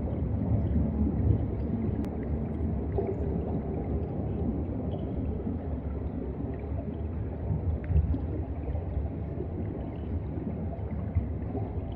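Underwater ambient sound picked up by a submerged camera's microphone: a steady low rumbling, gurgling wash of moving water, with a faint click about two seconds in.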